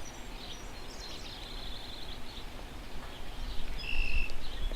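Birds chirping now and then, a few short high calls with a brighter pair near the end, over a low steady outdoor background rumble.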